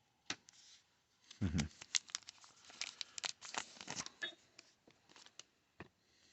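Foil wrapper of a baseball card pack being cut open with scissors and handled, a quick run of crackling and tearing sounds. A single dull bump comes about a second and a half in.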